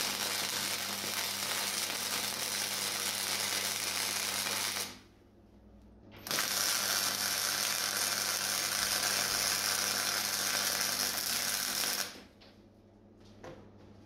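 Wire-feed welder's arc running as a bead is laid on the steel of an old LPG tank: two long welds, the first about five seconds and the second about six, with a short pause between; the arc stops about twelve seconds in, leaving a low hum.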